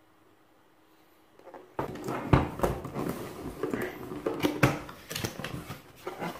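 Near silence, then about two seconds in a cardboard product box is handled and opened by hand: a run of knocks, scrapes and rustles as the flaps are folded back and the packed, plastic-wrapped unit is moved inside.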